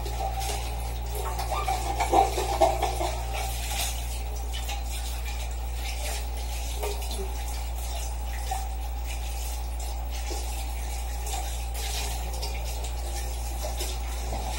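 Tap running steadily into a kitchen sink during hand dishwashing, with scattered light clinks of pots and utensils being scrubbed and rinsed.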